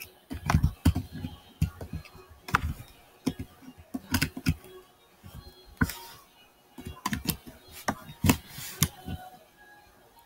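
Computer keyboard being typed on: irregular sharp key taps in small clusters, some with a dull knock beneath.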